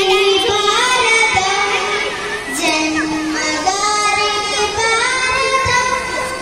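A young girl singing solo into a microphone, holding some notes long and steady.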